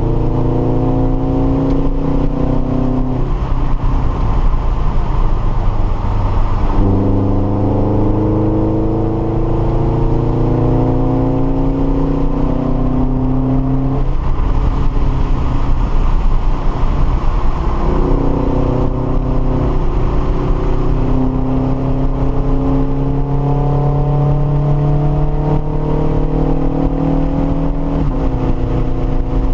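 Subaru BRZ's 2.0-litre flat-four engine, heard from inside the cabin, driven hard on track: its note climbs steadily, then falls away, several times over, with road noise underneath.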